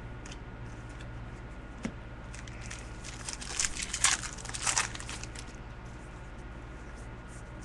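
Crinkling and rustling of trading card pack wrappers and cards being handled, over a steady low hum. There is a single click about two seconds in, and the crinkling comes in a burst from about three to five seconds in.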